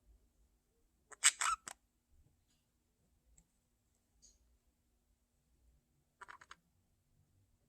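Pet budgerigars making two short bursts of rapid clicks, one about a second in and a second, quieter one near the end, with a few faint ticks between.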